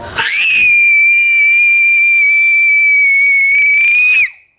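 A girl's long, loud, high-pitched scream of excitement. It rises into a single held note for about four seconds, then cuts off abruptly.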